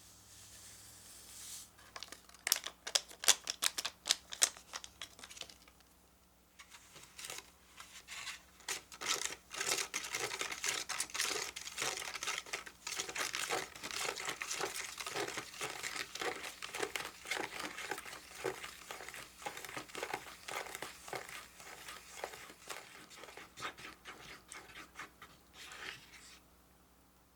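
Plastic or paper candy-kit packaging crinkling as it is handled: a few loud sharp crackles, a short pause, then a long stretch of dense crinkling that stops near the end.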